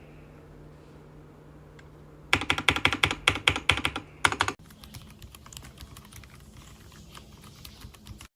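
Mechanical keyboard fitted with Akko switches being typed on: a fast run of loud keystrokes for about two seconds, then fainter, sparser key clicks until the sound cuts off near the end.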